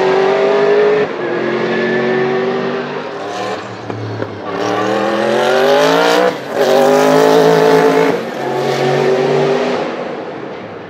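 Sauber Mercedes C11's twin-turbo V8 racing engine at full throttle, pitch climbing through the revs and breaking at each upshift. The engine fades near the end as the car pulls away.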